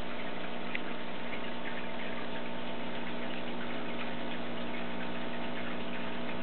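Aquarium filter running: a steady hum with a light, crackling trickle of water and faint tiny ticks.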